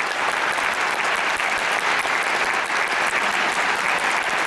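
Large audience applauding steadily, a dense continuous clapping that neither builds nor fades.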